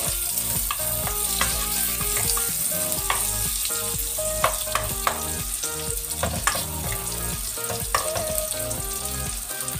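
Pork pieces with garlic and ginger sizzling in hot oil in a pot, stirred with a wooden spoon that scrapes and clacks against the pot now and then. This is the sautéing stage, the garlic frying to golden brown.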